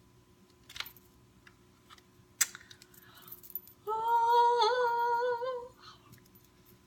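A woman humming one held, slightly wavering note for about two seconds, after a couple of short clicks and crinkles of packaging being handled.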